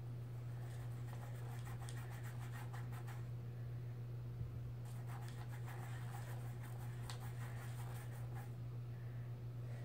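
Faint scratching and rubbing of a paintbrush on a small canvas and in a watercolour paint tray, in two spells of strokes, over a steady low hum.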